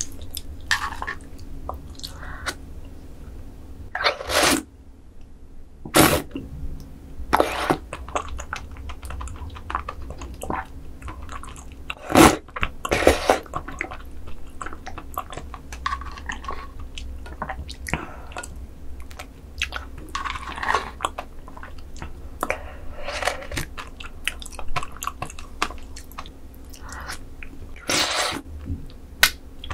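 Close-miked eating of raw squid sashimi noodles and sea cucumber intestines: wet chewing and mouth clicks, broken by several short slurps from the spoon and chopsticks.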